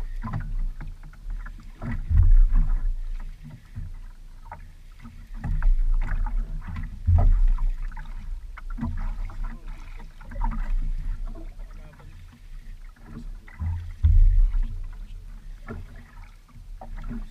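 Water lapping and slapping against the hull and outrigger of a small outrigger canoe, swelling in low rumbling surges every three to four seconds, with scattered small splashes and knocks.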